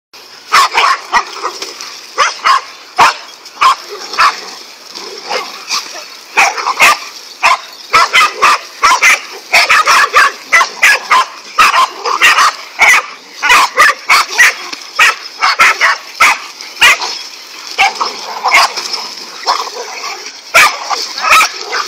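Several dogs barking rapidly and without pause at a snake they are fighting, barks overlapping with a few yips and whines.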